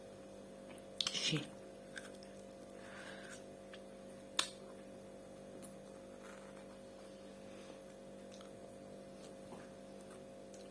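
Steady electrical hum with two constant tones, and a single sharp click about four and a half seconds in.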